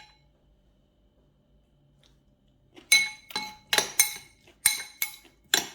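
A spoon clinking repeatedly against a bowl as a dressing is stirred: sharp ringing clinks about two to three a second, starting about three seconds in.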